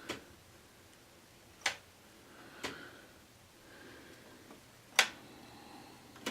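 Wall light switch with a slide dimmer being clicked on and off, five sharp clicks at uneven intervals, the loudest about five seconds in. The switch turns the main light on only some of the time.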